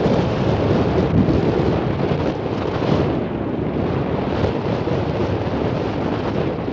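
Wind blowing on the microphone: a steady, low rush of noise with small rises and falls.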